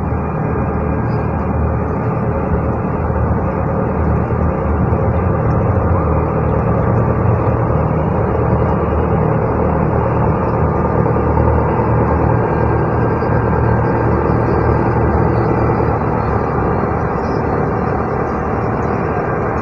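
A river ferry's engine running steadily: an even, low hum with a rushing noise over it, not changing in level.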